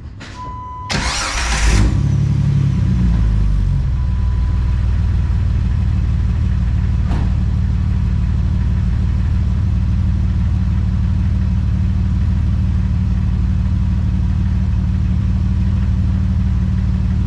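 Jeep engine with a Flowmaster muffler being started: a short steady tone, the starter cranks for under a second, and the engine catches and flares up, then settles into a steady idle. The muffler's slip joint, now sealed with a formed clamp, is left with only a tiny exhaust leak.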